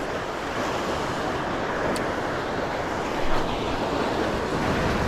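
Sea waves washing on the shore with wind rumbling on the microphone, a steady rush that swells briefly about three seconds in.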